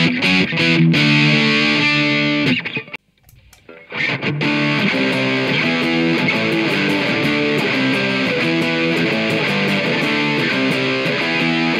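Electric guitar played through a Marshall MG50CFX combo amp on its Overdrive 1 channel, an overdriven tone. The playing stops for about a second, a little under three seconds in, then resumes on the amp's Overdrive 2 channel.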